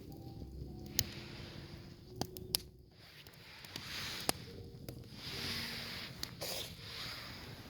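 Wood fire crackling, with scattered sharp pops and a soft hiss that swells up twice in the middle.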